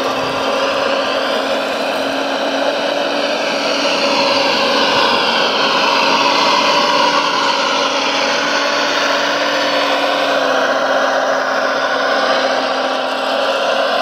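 Electric gear motors of a radio-controlled model dump truck whining as it drives, their pitch rising and falling with speed, over a steady low hum.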